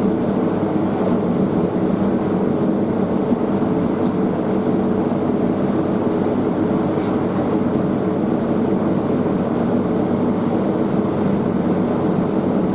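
Steady machine drone with a low hum, unchanging throughout.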